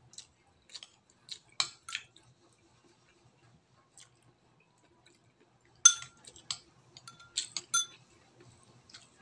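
Metal spoon clinking and scraping against a ceramic plate and bowl as octopus is spooned onto rice: a few scattered clicks in the first two seconds, then a cluster of louder, briefly ringing clinks from about six to eight seconds in.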